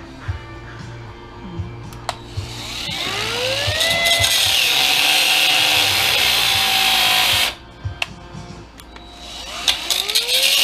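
Battery-powered cutoff wheel spinning up and grinding into aluminum, a loud high hiss over a motor whine. The whine rises, then sags under the cut. The tool stops suddenly about seven and a half seconds in and spins up again near the end; the user puts the stopping down to a flat battery.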